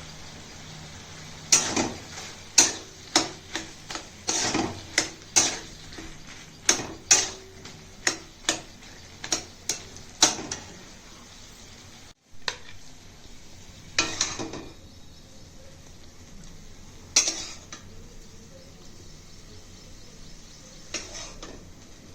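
A metal spoon or spatula clattering and scraping against a frying pan as vegetables are stirred, over a faint steady sizzle. A quick run of strokes for the first ten seconds or so, then only a few scattered ones.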